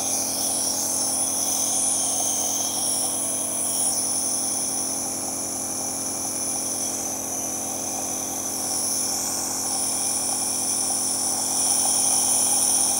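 Compressor nebuliser running with a steady electric hum and a high hiss of air as it turns saline water into mist.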